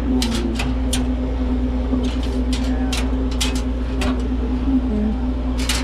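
Sharp metallic clicks and rattles from hands working the metal channels and wire gates of a drink vending machine's bottle rack, over a steady low hum.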